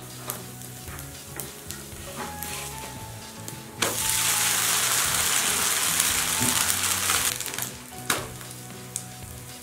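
Set dosa frying in oil on a hot tawa: a loud sizzle starts suddenly about four seconds in, as the dosa is flipped onto the oiled pan, and dies away after about three seconds. A few light spatula clicks on the pan come before and after it.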